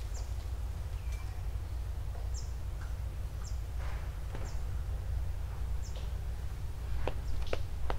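A small bird repeats a short, very high call that drops in pitch, five times at irregular gaps, over a steady low rumble. A few sharp clicks come near the end.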